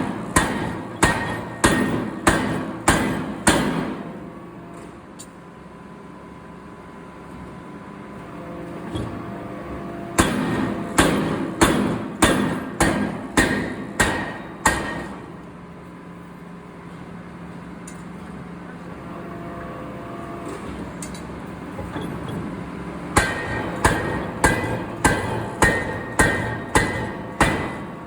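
Hammer blows on steel in a forging shop, struck at about two a second in three runs of roughly seven to ten blows each. A steady machine hum fills the pauses between the runs.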